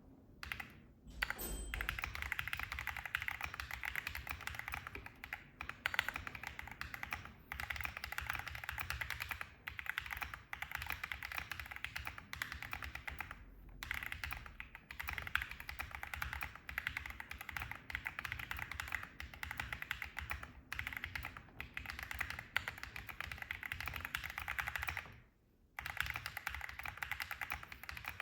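Keychron Q6 Max full-size mechanical keyboard with Keychron Banana tactile switches being typed on rapidly and steadily as a sound test. The clicks run almost without a break, stopping briefly a few times and for about half a second near the end.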